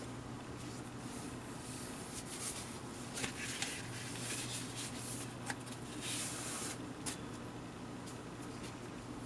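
Silvery protective wrapping rustling and crinkling in several short bursts as it is handled and taken off a writing tablet, with a few light clicks, over a faint steady hum.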